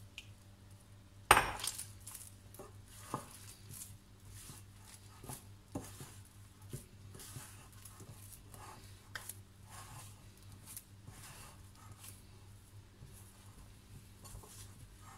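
Hands mixing and kneading maida dough in a glass bowl: irregular soft knocks and rubs of dough and fingers against the glass. A single sharp knock about a second in is the loudest sound.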